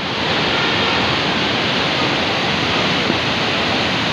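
Water rushing out under the sluice gates of a river barrage, a steady churning of white water.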